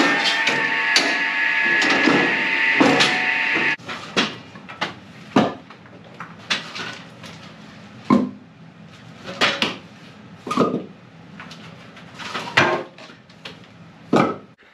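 Cross-cut log saw running with a steady high whine while wood knocks against it; the sound cuts off abruptly about four seconds in. After that, split firewood logs knock and clatter one at a time as they are stacked into a pile.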